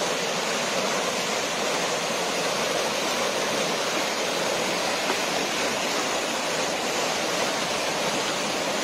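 Muddy floodwater gushing and churning past in a steady rush.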